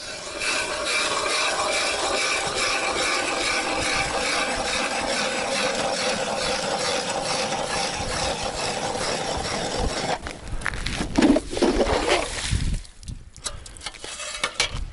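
Hand ice auger cutting a hole through river ice, a steady grinding scrape as the blades shave ice chips up the spiral. After about ten seconds the drilling stops and gives way to a few louder knocks and scrapes.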